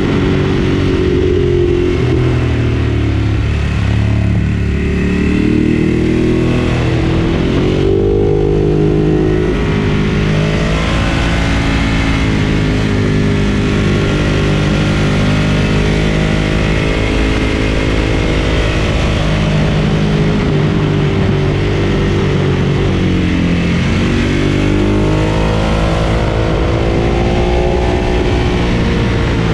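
Ducati Monster 1200 S's L-twin engine running under way, its pitch rising and falling again and again as it accelerates and eases off, with a few quick dips in pitch where gears are shifted.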